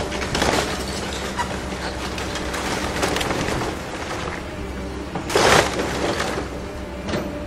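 Caterpillar excavator's diesel engine running steadily while its bucket and grapple thumb tear into a wood-frame house, with repeated crashes of splintering and collapsing timber. The loudest crash comes about five and a half seconds in.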